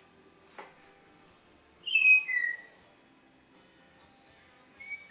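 Jardine's parrot whistling: a loud high whistle that falls in pitch in two steps about two seconds in, and a shorter whistle near the end, with a faint click before the first.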